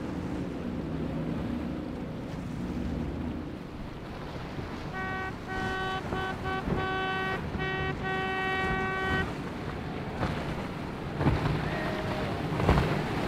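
Motorboat engines running past with the rush of water and wind noise. In the middle a steady high-pitched tone sounds for about four seconds, broken by a few short gaps, and near the end the engine hum comes up again with some sharp slaps.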